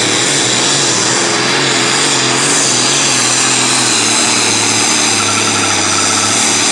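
Super stock pulling tractor's diesel engine running flat out under load as it drags the weight-transfer sled down the track, steady throughout, with a high-pitched turbocharger whine riding over the engine.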